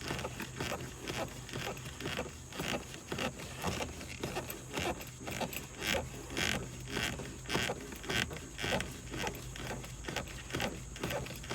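Outer ring of a Mercedes W123 ignition lock being unscrewed by hand: irregular light metallic clicks and scrapes, several a second, as the threaded ring and the key in the lock are turned and jiggled.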